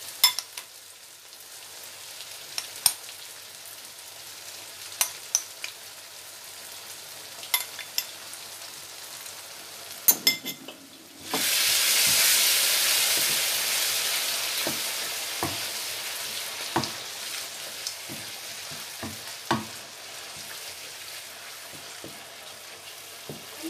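Onion-tomato masala sizzling in a nonstick wok, with a few taps of a wooden spatula on the pan. About halfway, as freshly added yogurt is stirred in, the sizzle suddenly gets loud and then slowly dies down, while the spatula knocks and scrapes against the wok every second or so.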